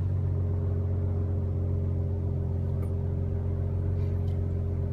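Steady drone of a car's engine and road noise while driving, with a couple of faint clicks.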